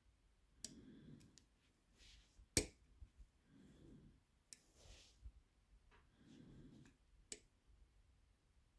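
Lock-picking tools working in the keyway of a hand-made challenge lock: a handful of sharp, separate metallic clicks as pins are picked and set, the loudest about two and a half seconds in.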